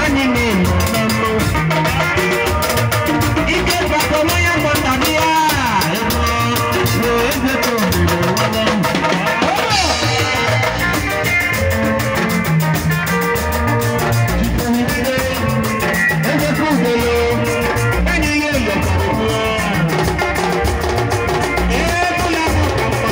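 Live band playing through PA speakers: electric guitars and a drum kit keeping a steady beat, with a man singing lead into a microphone.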